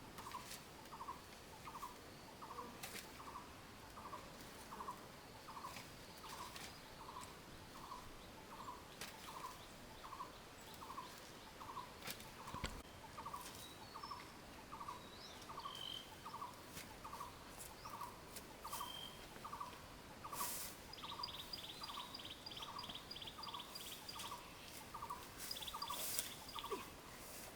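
A bird calling one short note over and over at an even pace, about one and a half times a second, faint, with a quick run of higher chirps about three quarters of the way through.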